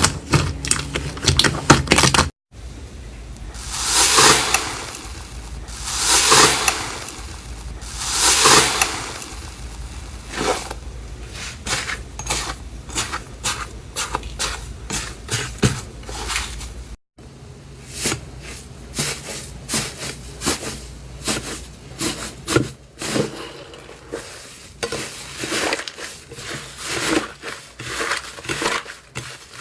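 Slime being squeezed and pressed by hand: dense wet crackling and clicking, with three slower swelling squishes a few seconds in. The sound cuts off briefly twice.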